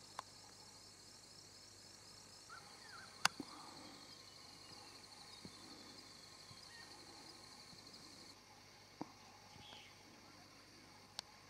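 Insects chirping steadily in dry bush, a high, evenly pulsing trill that stops about eight seconds in. A few sharp clicks break in, the loudest about three seconds in.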